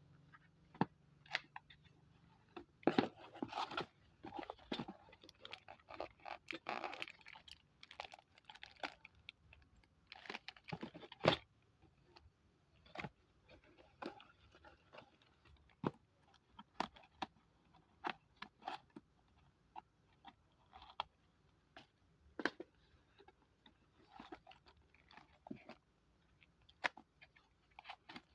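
A TV wall bracket kit being unpacked and handled: packaging crinkling and scraping, with scattered sharp clicks and knocks of its thin steel plate parts.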